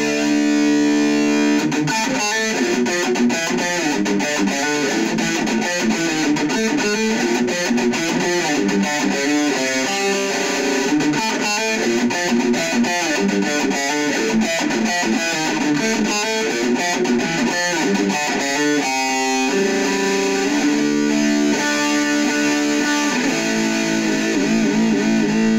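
Jackson KVXMG electric guitar played with heavy distortion through a Black Truck distortion pedal into an Orange Micro Dark hybrid tube amp head and small PPC108 speaker cab. Held chords at the start, then fast riffing and runs of notes, with long ringing chords again about twenty seconds in and at the end.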